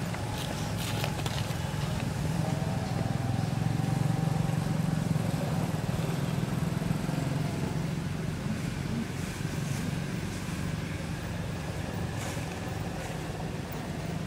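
Steady low rumble of a motor vehicle engine, swelling a little a few seconds in and then easing off.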